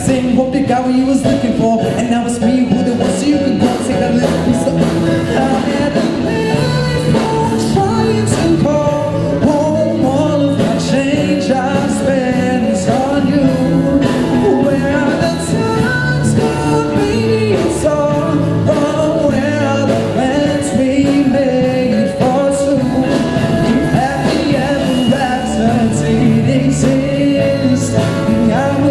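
Live band playing a pop-rock song with drums, guitar and a singing voice, the voice not clearly made out.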